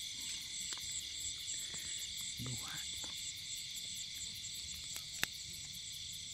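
Night chorus of insects such as crickets in a rice field: a steady, high, pulsing trill. A short low call comes about two and a half seconds in, and a single sharp click near the end.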